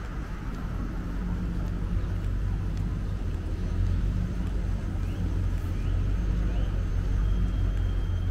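City street traffic: a van drives past close by over a steady low rumble that slowly grows louder.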